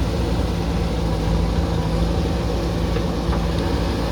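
JCB 3DX backhoe loader's diesel engine running steadily with a constant low hum.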